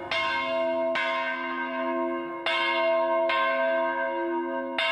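A single church bell ringing, struck about five times at uneven intervals of roughly a second, each stroke ringing on into the next.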